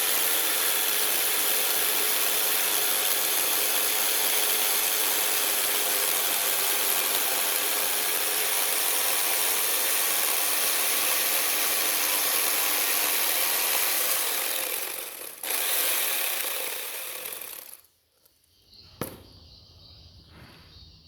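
Chainsaw running steadily as it cuts into wood. It breaks off for an instant about fifteen seconds in, then dies away near the end, followed by a single sharp click.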